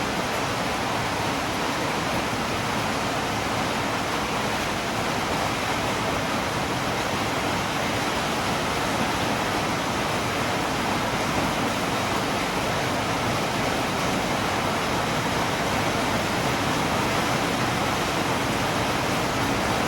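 Steady rain falling, an even, unbroken hiss with no single drops, thunder or other events standing out.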